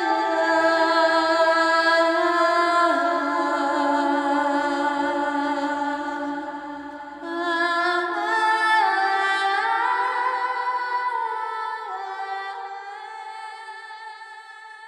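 Slow background music of long held chords that change every few seconds, dipping briefly about halfway and fading out near the end.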